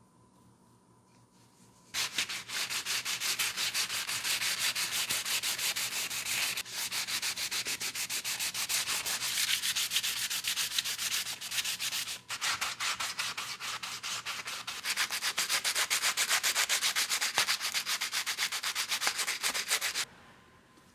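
Hand sanding: the weathered wooden sickle handle rubbed in rapid back-and-forth strokes against sandpaper clamped in a bench vise. The sanding starts about two seconds in, pauses briefly twice and stops a second before the end.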